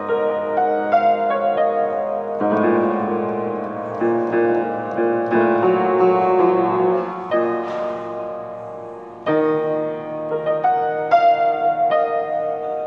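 Upright piano played by hand: slow sustained chords struck every second or two, followed near the end by a run of quicker, higher notes.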